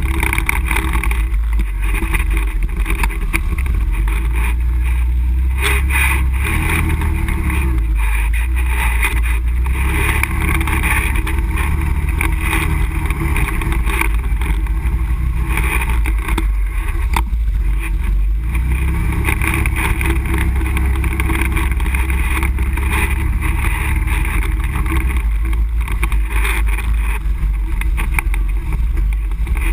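ATV engine running steadily as the machine rides a rough dirt trail, heard close from a camera mounted on the ATV itself, with a few brief knocks from the bumpy ground.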